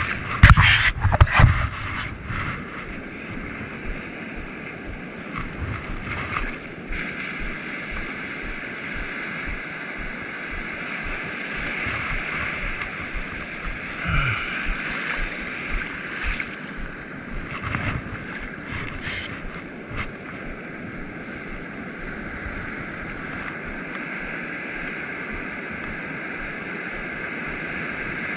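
Ocean surf breaking and foamy wash hissing steadily, mixed with wind on the microphone. A few loud knocks come in the first two seconds.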